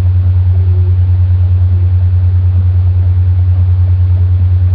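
Steady low hum with a fast, even flutter, picked up by a webcam microphone and loud throughout.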